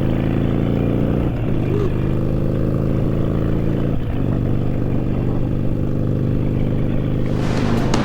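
Harley-Davidson Sportster V-twin pulling under acceleration while riding. Its pitch climbs slowly and breaks twice, the way it does at gear changes.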